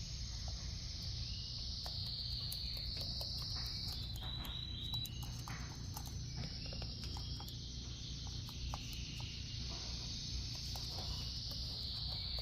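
A continuous high-pitched insect chorus of crickets, with scattered small clicks over a low steady hum.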